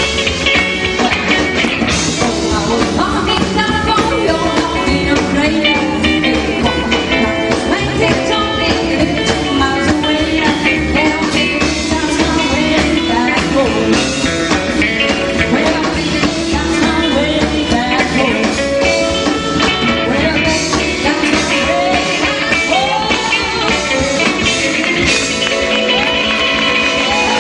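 Rockabilly band playing live, with a woman singing.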